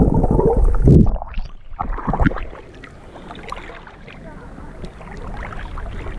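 Muffled underwater rush and bubbling from a swimmer's camera. It cuts off sharply about a second in as the camera breaks the surface, followed by quieter splashing and water trickling and ticking on the camera.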